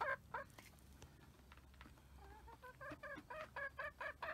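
Backyard hens clucking: a few short clucks at the start, then after a quieter stretch a quick run of short clucks, about three or four a second.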